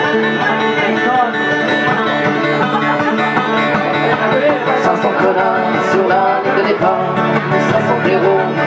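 A live band playing an instrumental passage of a song, plucked string instruments over sustained chords.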